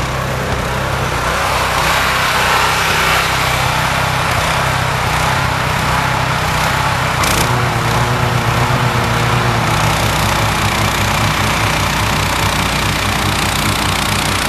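John Deere 1032 two-stage snowblower, repowered with a 16 hp PowerMax engine, running under load as its auger and impeller throw wet, heavy snow out of the chute. A steady engine note sits under a rushing hiss.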